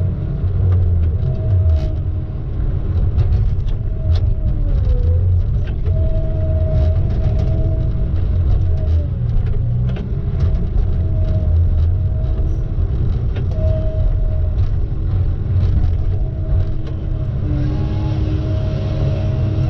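Motor vehicle running: a steady low rumble with a droning hum that dips in pitch briefly twice, and scattered small clicks and rattles.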